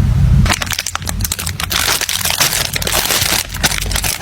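Packaging crinkling and rustling as a gift package is handled and opened, a dense run of irregular crackles.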